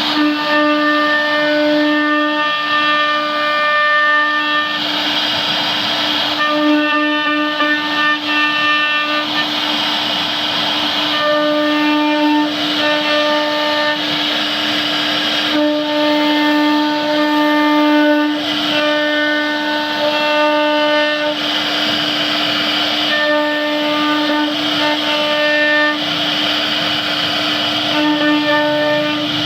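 CNC wood router spindle running with a steady whine while it cuts wood. Higher tones and a cutting hiss come and go every few seconds as the bit works through the material.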